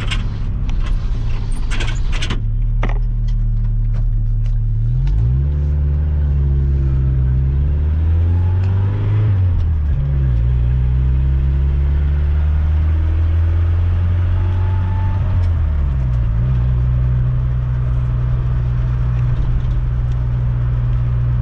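Ford Ranger pickup's engine pulling under way, its pitch climbing and falling back a few times as it accelerates through the gears. It runs smoothly and evenly, now firing on all cylinders after a stuck fuel injector was freed.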